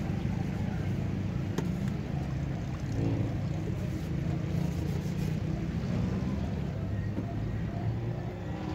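A steady low background rumble, with a single faint knock about one and a half seconds in.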